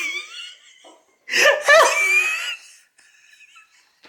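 A person laughing: one laugh trailing off at the start, then another burst about a second and a half in.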